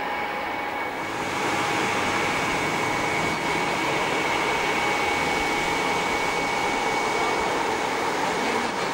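Ilyushin Il-62M's four rear-mounted Soloviev D-30KU turbofans as the jet taxis past: a steady jet whine with high held tones over a rush of noise, growing louder about a second in as the aircraft draws near.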